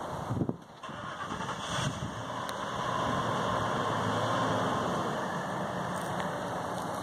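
A car engine running in the street, a steady idling rumble that swells a little around the middle.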